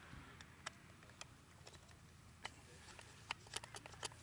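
Near silence broken by scattered faint clicks and taps, more of them near the end: hands handling a wooden block packed with a cartridge charge.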